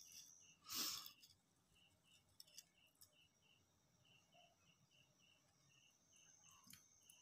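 Near silence, with a brief wet squelch about a second in as a hand squeezes soaked tamarind pulp in a steel bowl. Faint, evenly spaced high chirps run underneath, about three a second.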